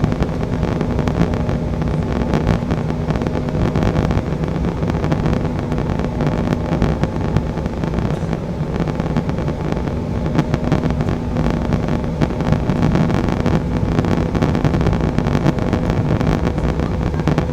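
Steady cabin noise inside an Embraer E175 airliner on approach: the drone of its turbofan engines and rushing air, with a steady low hum underneath.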